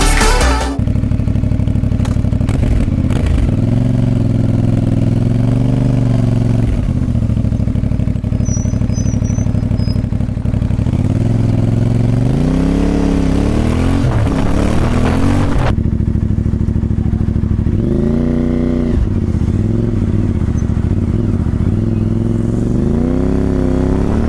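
CFMoto 450MT motorcycle engine running at idle and being revved several times, the pitch rising and falling back to idle with each blip of the throttle, about a quarter, half, three-quarters of the way in and near the end.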